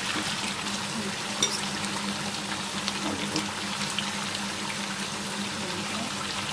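Thick, reduced chicken roast gravy bubbling and sizzling in a pan over low-medium heat, with a few small ticks and a steady low hum beneath.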